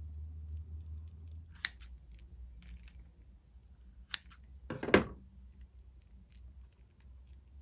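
Scissors snipping through a thick slime coated in crumbly powder: a few sharp snips, the loudest about five seconds in.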